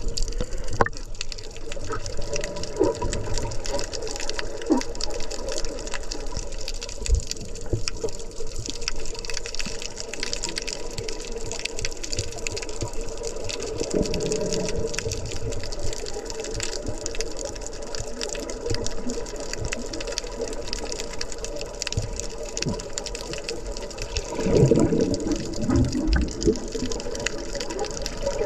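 Underwater sound through a camera housing: a steady, muffled rush of moving water with frequent faint crackling, and a louder gurgling swell near the end.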